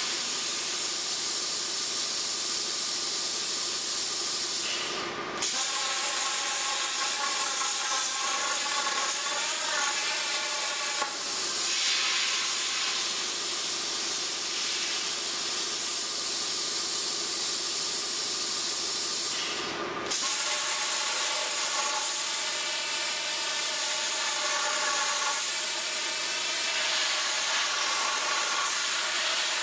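Plasma torch of a CNC tube processor cutting square steel tube: a steady hiss with a faint whine in it, breaking off for a moment twice, about five seconds in and again near twenty seconds.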